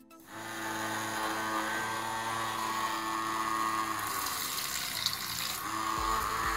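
Small DC motor whining steadily as it spins a boat propeller, starting just after the beginning; from about four seconds in, the propeller dips into the water and churns and splashes it while the motor keeps running.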